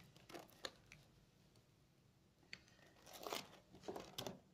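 Faint crinkling and scraping as a plastic packing strap and a woven bamboo basket are handled: a few light clicks, a quiet stretch, then a cluster of rustles from about two and a half seconds in.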